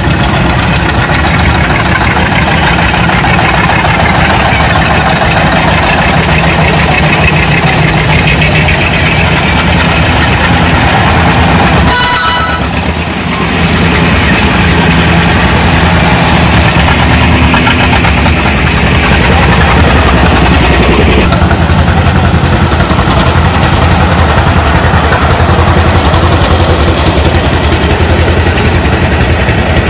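Antique farm tractors running at low speed as they drive slowly past one after another, with the low rhythmic beat of John Deere two-cylinder engines. The engine sound grows louder about two-thirds of the way through as a tractor comes close.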